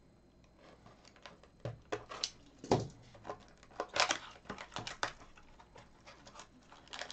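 Hockey card hobby box being opened and its packs handled by gloved hands: scattered taps, scrapes and cardboard rustles, with a louder knock about two and a half seconds in.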